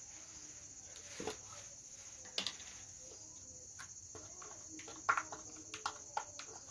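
Steady high-pitched chirring of crickets or similar insects, with a few light clicks and knocks from plastic spice tubs being handled, the loudest about two and a half and five seconds in.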